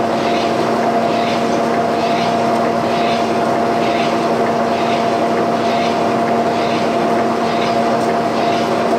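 Boring machine running with the boring bar cutting metal: a steady motor hum, with a hissing scrape from the cut coming round about every three-quarters of a second.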